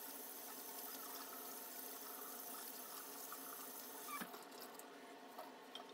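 Faint running water from a kitchen faucet as a Norwex counter cloth is rinsed out to clear the butter from it. The water stops about four seconds in, followed by a couple of small clicks.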